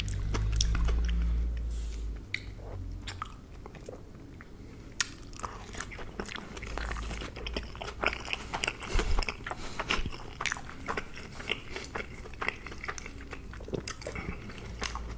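Close-miked chewing of enoki mushrooms: irregular wet, squeaky clicks and crackles of the chewy stems being bitten and mashed. A heavy low rumble fills the first two seconds.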